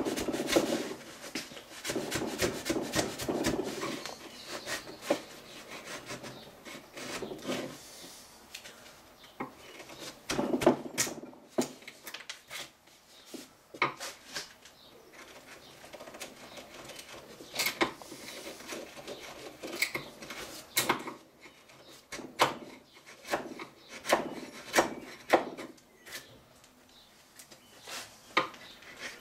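Wood chisel being pushed by hand through the end of a tough ash axe handle: irregular scraping cuts mixed with many sharp clicks and knocks of the blade on the wood.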